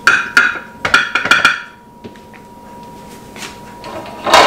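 Kitchen containers and utensils being handled on a countertop: a quick run of sharp clacks and knocks in the first second and a half, then a louder clatter near the end.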